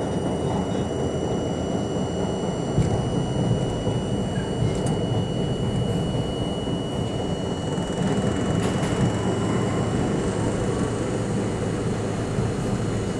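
New York City subway C train running through a tunnel, heard from inside the car: a steady rumble of wheels on rails with a few sharp clicks from rail joints, over a thin steady high-pitched tone.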